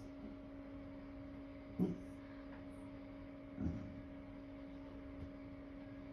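A steady low hum, broken twice by a short low-pitched sound, the two about two seconds apart.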